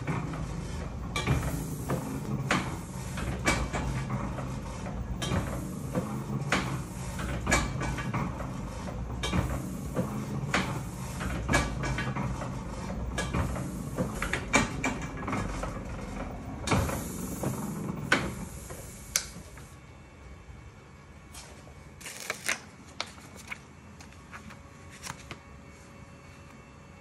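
Flywheel-driven platen letterpress running, clacking about once a second over a low mechanical rumble. The press stops about two-thirds of the way in, and a few light clicks follow as a plate and strips are handled on the press bed.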